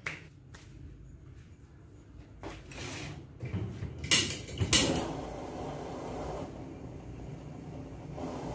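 Cookware and utensils clattering during cooking: a few light knocks, two loud clanks about four seconds in, then a steady rushing noise.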